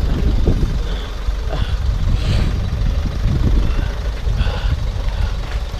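A loud, low, steady rumble.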